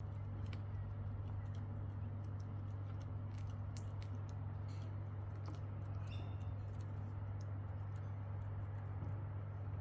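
A steady low hum, with scattered small clicks and ticks of birds pecking and picking at food, and one brief higher squeak about six seconds in.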